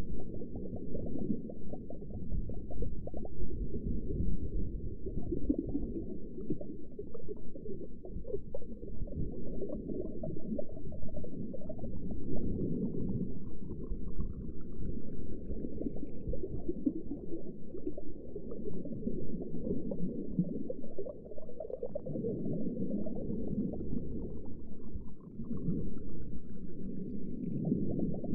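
Muffled underwater ambience: a steady low rumble with bubbling and gurgling. Twice, a faint tone rises slowly in pitch over a few seconds.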